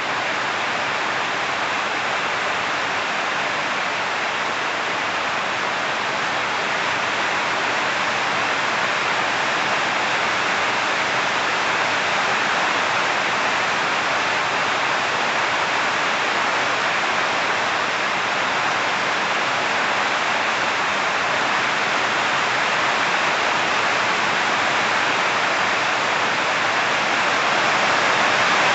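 Steady heavy rain, an even hiss with no separate drops standing out, growing a little louder near the end.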